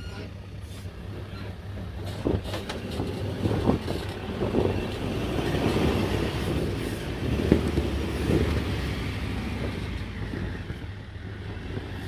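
Off-road 4x4 SUV's engine labouring at low speed as it crawls up a steep rutted dirt gully, pulling harder through the middle, with a few sharp knocks from the wheels on the ruts and stones.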